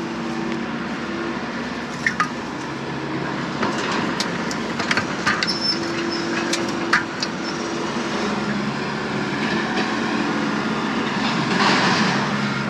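An engine running steadily, with scattered sharp metallic clanks and rattles over it, most of them in the first half.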